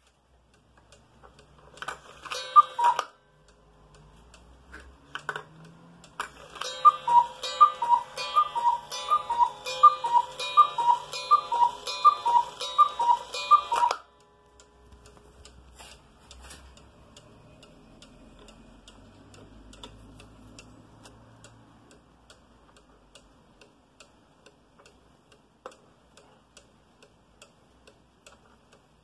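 Black Forest cuckoo clock with a Regula 25 mechanical movement calling its two-note cuckoo about ten times in an even run, counting out the hour. Then the pendulum movement ticks faintly and steadily.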